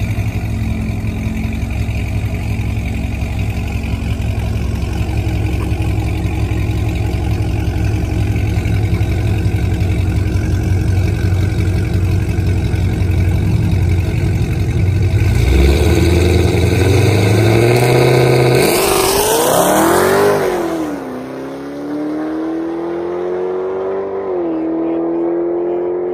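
Dodge Charger Hellcat's supercharged 6.2-litre Hemi V8 idling low and steady at the drag-strip start line. About fifteen seconds in, it builds revs and launches, its pitch climbing steeply to the loudest point. The note then drops back and goes on rising more quietly as the car pulls away down the track, with a shift near the end.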